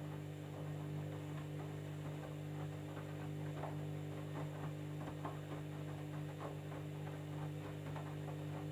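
Candy washing machine running on a jeans cycle: a steady motor hum with faint, irregular clicks and knocks.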